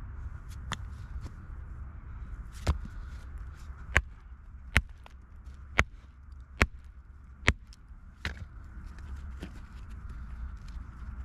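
Sharp clinks of stone knocking on stone, about eight of them roughly a second apart, as shale and limestone pieces are handled and set down on a rock pile, over a steady low rumble.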